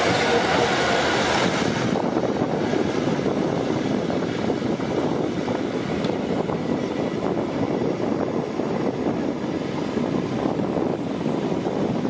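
Bulldozer working: a steady diesel engine with continuous clatter, brighter and hissier for the first couple of seconds.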